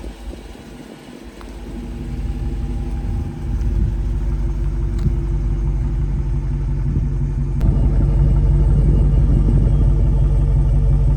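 An engine or motor running steadily with a low hum. It grows louder in steps about two, three and a half and seven and a half seconds in, with a sharp click at the last step.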